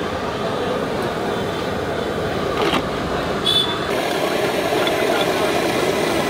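Steady street traffic noise, with a short knock and a brief high tone near the middle.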